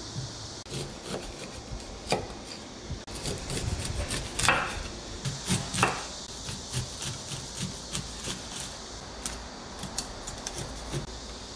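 Kitchen knife slicing kernels off a supersweet corn cob on a wooden cutting board: irregular scraping cuts with knocks of the blade on the board, loudest about halfway through.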